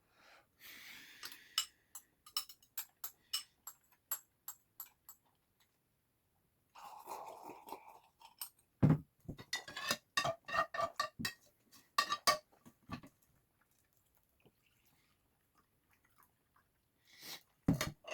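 Eating sounds from a bowl of potato sujebi played back at double speed: quick clinks of utensils against the bowl and chewing, in two bursts of rapid clicks, with a louder knock about nine seconds in and another near the end.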